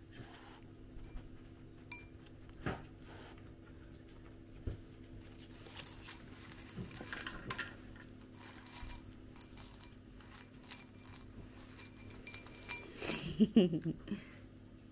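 Dry pasta and beans clicking and rattling against ceramic bowls as small hands rummage through them, in scattered light clinks. Near the end a short burst of voice.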